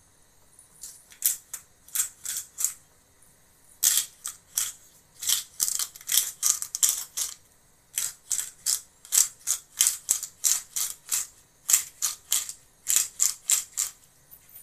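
Hand-twisted pepper mill grinding allspice peppercorns, in quick grinding strokes about two a second, in three runs with short pauses between them.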